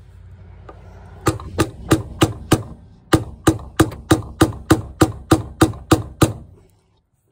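Hammer tapping a screwdriver used as a drift against a fuel pump's lock ring, driving the ring round over its ramps to lock the pump into the tank: about sixteen sharp taps in two quick runs at about three a second, with a short pause between them.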